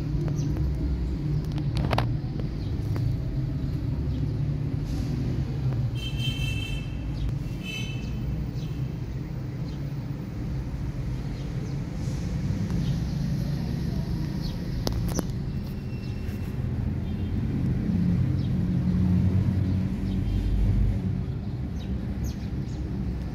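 Steady low rumble of distant road traffic, with a few brief high chirps about six to eight seconds in and an occasional sharp click.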